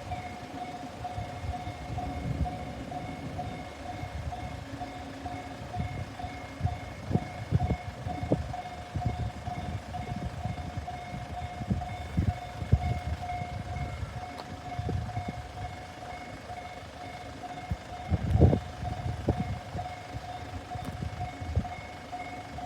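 Japanese railroad crossing's electronic warning bell ringing steadily as a fast, repeating ding. Under it runs low rumbling with irregular thumps, the loudest about 18 seconds in.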